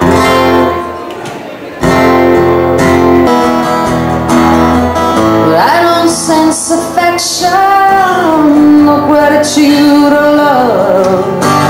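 Acoustic guitar strummed in chords, with a woman singing over it from about halfway through, her voice sliding between notes.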